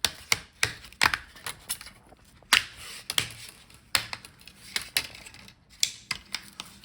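Plastic retaining clips of a ThinkPad E15 display's front bezel snapping loose as the bezel is pried off. It is a run of irregular sharp clicks and snaps, a few to several a second.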